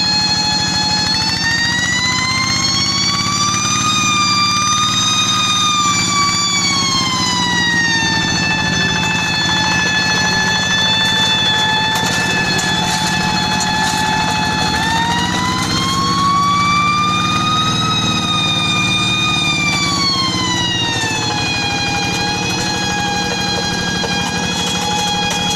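Paddy-field tractor running under load with a loud high 'nging' whine over the engine's low rumble; the whine rises in pitch twice, at about two seconds and again about fifteen seconds in, then sinks back each time.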